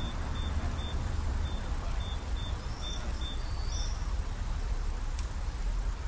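Short high electronic beeps from ground-penetrating radar equipment, about nine of them at uneven intervals of roughly half a second, stopping about four seconds in. A steady low rumble runs underneath.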